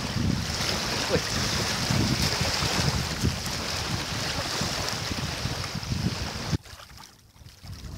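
Strong wind buffeting the microphone over choppy water lapping at a stony shore. The noise drops off suddenly about six and a half seconds in, leaving fainter wind and water.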